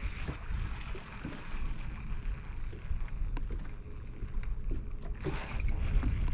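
Wind buffeting the microphone on open water, a steady low rumble, with small waves lapping at the boat hull and a few light clicks; a rush of hiss swells about five seconds in.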